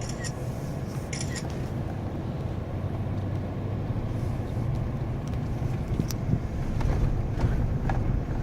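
Steady low rumble of a car driving, engine and road noise heard from inside the cabin, getting a little louder in the second half, with a couple of brief high clicks near the start.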